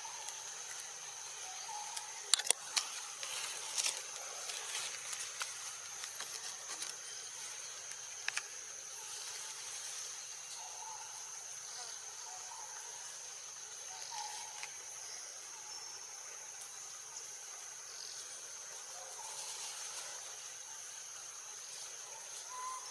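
Steady high-pitched insect drone, with a cluster of sharp clicks a couple of seconds in and another single click about eight seconds in.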